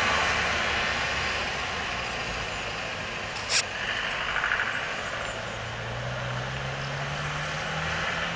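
Road traffic: a passing motor vehicle's noise fades away, then another vehicle's engine comes in as a low hum rising slowly in pitch over the last few seconds. A single short click about three and a half seconds in.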